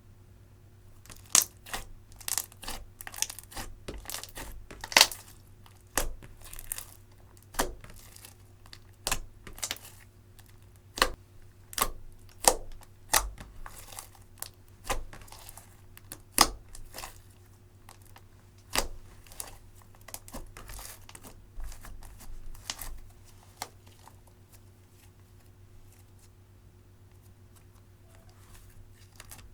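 Slime made from clear slime mixed with eyeshadow being squished and stretched by hand, giving sharp clicking and popping sounds in quick irregular succession, which stop about 23 seconds in.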